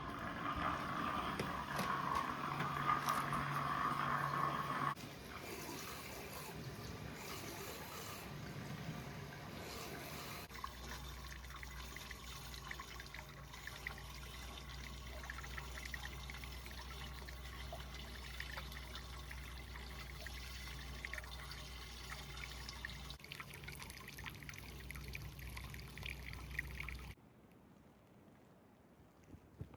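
Hot spring water pouring and trickling into a bath, loudest in the first few seconds, with a steady low hum beneath it through the middle stretch.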